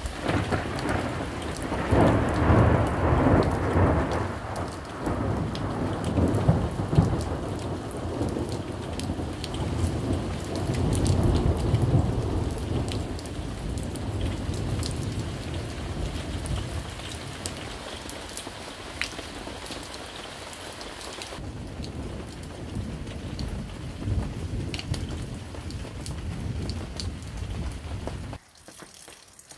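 Thunder rumbling over steady rain: a long rolling peal loudest a couple of seconds in, swelling again around eleven seconds, then fading. After that, rain falls alone with sharp drop clicks, and the sound drops away abruptly just before the end.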